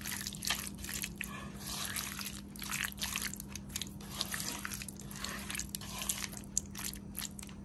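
A hand squishing and turning raw prawns in a wet masala paste: irregular wet squelches and small clicks.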